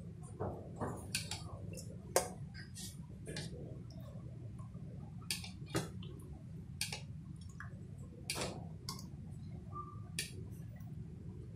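A metal spoon clicks and taps now and then against a ceramic bowl as liquid pandan agar jelly is scooped out and spooned onto a layered jelly tray. There is a low steady hum underneath.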